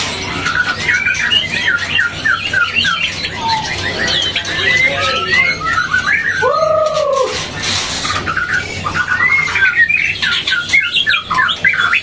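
Caged white-rumped shamas (murai batu) singing: rapid runs of high chirps and whistles, with a louder, lower arched note about six and a half seconds in.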